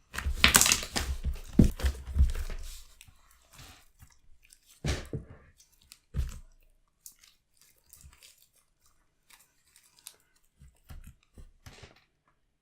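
Glue slime being stirred and worked by hand, making irregular sticky squelching and crackling. The sound is busiest in the first couple of seconds, then thins to scattered separate squishes.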